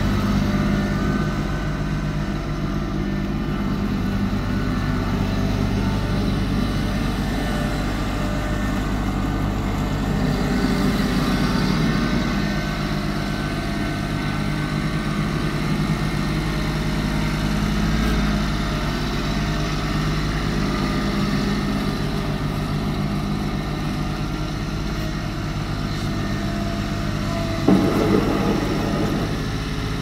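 Kubota B26 compact tractor's three-cylinder diesel engine running steadily while the tractor drives, with a brief louder burst of noise near the end.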